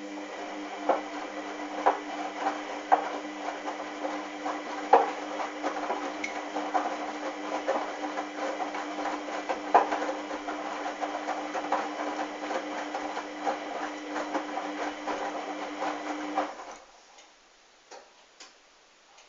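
Hoover washing machine's drum motor running at a steady tumbling speed with a hum, with irregular clicks and knocks from the turning drum and load. It cuts off suddenly about sixteen and a half seconds in, as the drum stops between tumbles.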